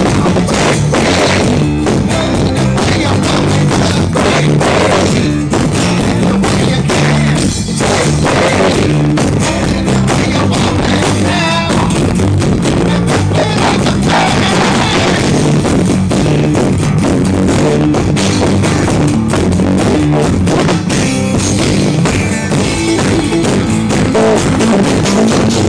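A live unplugged rock band: strummed acoustic guitars with a steady beat, played loud and continuous.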